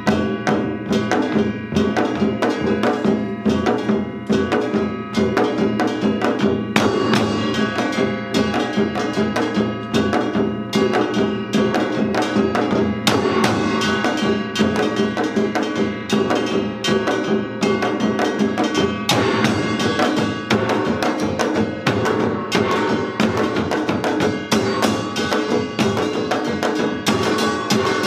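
Samul nori percussion ensemble playing a fast, dense rhythm: janggu hourglass drums and buk barrel drums struck continuously under the ringing of small kkwaenggwari gongs and a jing gong.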